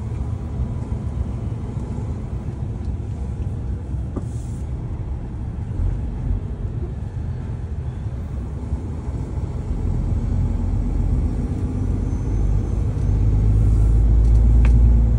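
Heavy goods lorry driving, heard from inside its cab: a steady low rumble of diesel engine and road noise. It grows louder from about two-thirds of the way in and is heaviest near the end.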